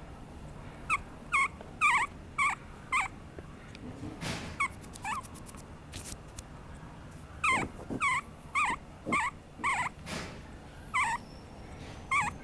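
Papillon puppy whimpering in short, high-pitched cries that come in clusters of several at a time with pauses between. There are a couple of soft rustles among them.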